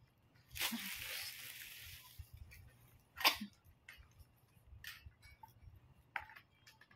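Metal ring-light tripod stand being handled and adjusted. A rasping scrape starts about half a second in and fades over a second or so. A sharp click comes a little after three seconds in, then lighter clicks and knocks.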